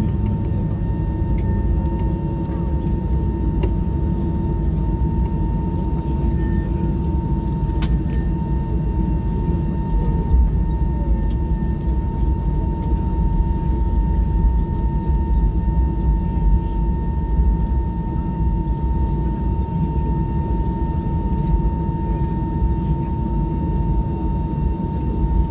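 Steady cabin noise inside an Airbus A320-214 on the ground after landing: a dense low rumble with a constant high whine.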